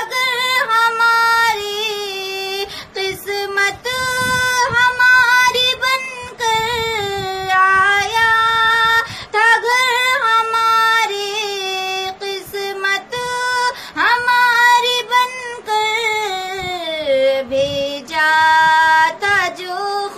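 A single high-pitched voice singing an Urdu naat, a devotional song of farewell to Ramadan, in long held, wavering notes. The melody sinks lower about three-quarters of the way through, then rises again.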